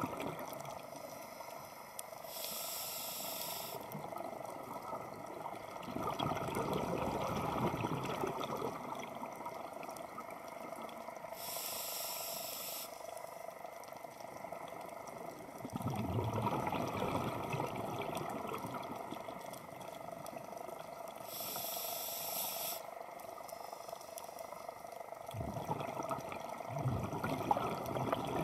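Scuba diver breathing through a regulator, heard underwater: a short hiss on each inhale and a longer rush of exhaled bubbles, in a slow cycle of about ten seconds, three breaths in all.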